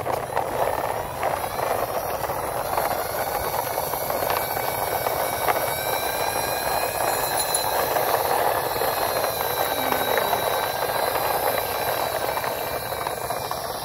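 Plastic toy crane truck rolling over dry, gritty dirt: a steady scraping rumble with a faint thin whine above it.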